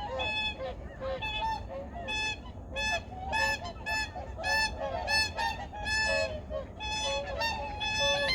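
A flock of wild geese honking: many overlapping calls, two or three a second, some higher and some lower.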